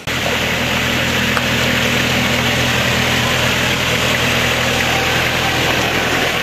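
A vehicle engine idling close by, a loud, steady hum with a constant hiss over it, starting abruptly.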